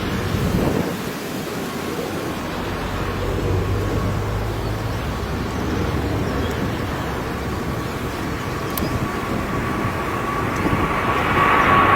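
Airliner engines heard over wind and rain, a steady rumble with a high whine that grows louder over the last few seconds as the aircraft comes closer.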